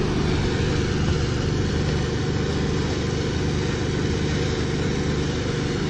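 Steady low mechanical hum of a running motor, holding one constant pitch.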